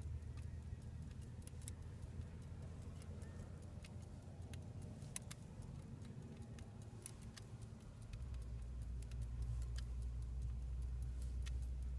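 Faint, irregular small metallic clicks of a watch key and pocket-watch case being handled as the hands are turned. A low steady hum under them gets louder about eight seconds in.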